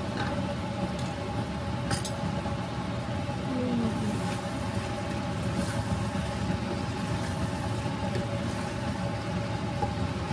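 A steady mechanical hum with a couple of steady tones in it, under a pan of chicken livers and gizzards in adobo sauce being stirred with tongs and a spatula. A single sharp click, the utensil against the pan, about two seconds in.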